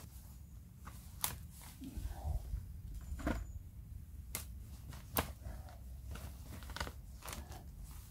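Digging tool cutting into leaf litter and soil around tree roots: about six sharp strikes and scrapes at uneven intervals.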